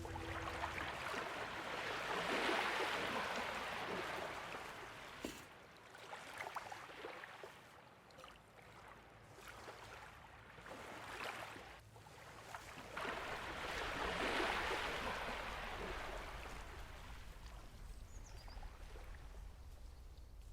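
Water sloshing and trickling, swelling up twice about twelve seconds apart, with small drips and clicks in the quieter stretch between.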